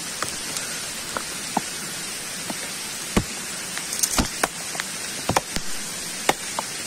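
Scattered sharp snaps and knocks of twigs and brush being handled, thickest and loudest between about three and six and a half seconds in, over a steady hiss.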